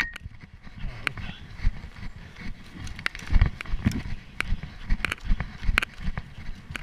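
Running footsteps thudding on a dry forest floor, with sharp crackles of twigs and dry grass underfoot and hard panting breath close to a chest-mounted camera.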